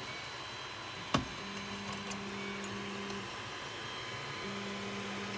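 A single sharp click about a second in. Then a steady low machine hum of one unchanging pitch runs for about two seconds, stops, and comes back for another second and a half.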